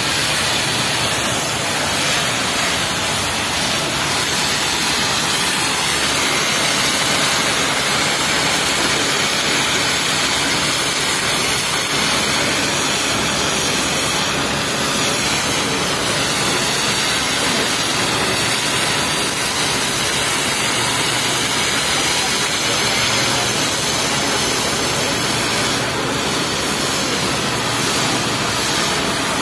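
Fire hose jet spraying water hard onto a tarmac road, a steady loud hiss and splash that runs on without a break.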